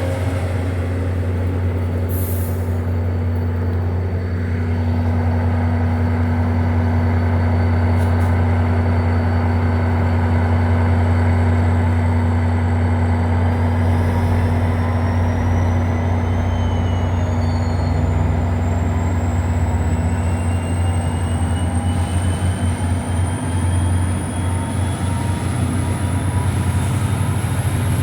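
NJ Transit passenger train running at the station with a steady low rumble. From about halfway through, a high whine rises steadily in pitch as the train picks up speed.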